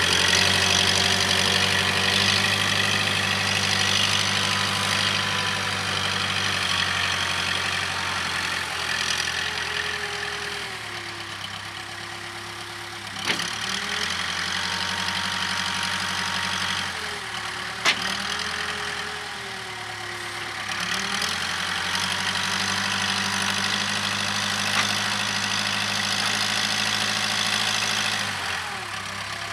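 Case 580K backhoe's diesel engine running as it works, its speed dipping twice and picking up again, with a whining tone that bends in pitch. Two sharp clanks come a few seconds apart near the middle.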